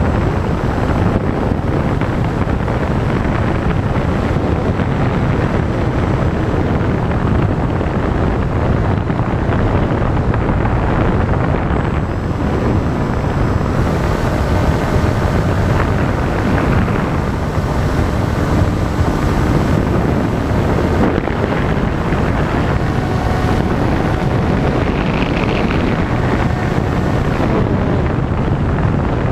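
Airflow rushing over the onboard camera's microphone of an RC glider in flight: a loud, steady roar of wind noise. Faint thin whining tones come and go in the middle.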